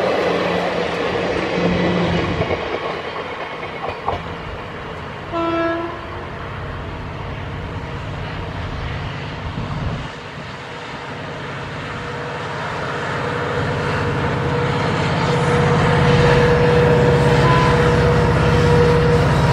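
Passenger coaches rattling past over the rail joints, with a short train horn blast about five seconds in. Then a WDG4D diesel-electric locomotive hauling an express approaches, its two-stroke diesel engine rumbling louder as it nears.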